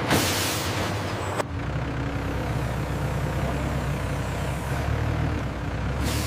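A rushing burst of noise that cuts off abruptly about a second and a half in, followed by a heavy machine's engine running steadily with a low hum; another rush of noise starts near the end.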